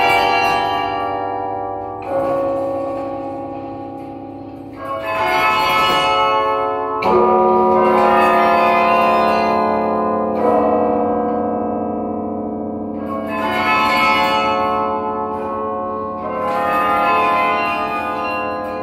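The 54-bell Yale Memorial Carillon playing a slow passage from its baton keyboard: chords of tuned bronze bells struck a few seconds apart, each left ringing and slowly fading, with a low bell entering partway through and sounding under the rest.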